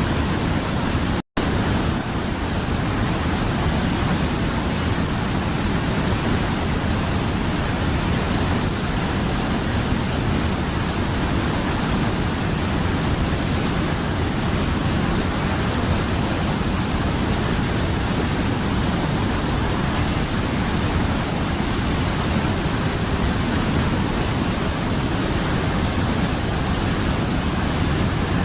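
Mountain river water rushing steadily over its bed in an even, full-range roar, with a split-second dropout to silence about a second in.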